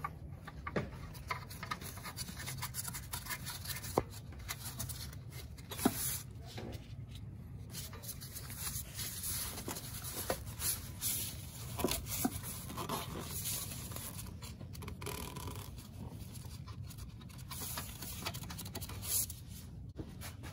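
Close handling noise in an engine bay: light rubbing and scraping with a few sharp metallic clicks, as nuts are started by hand on the studs of a new upper engine mount. The sharpest clicks come about 4, 6 and 12 seconds in.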